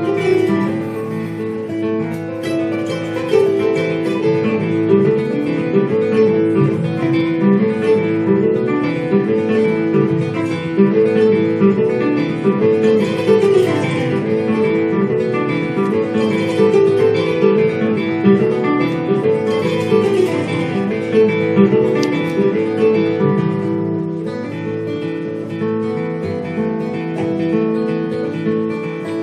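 Acoustic guitar and kora playing an instrumental passage together, a continuous flow of interweaving plucked notes with no singing.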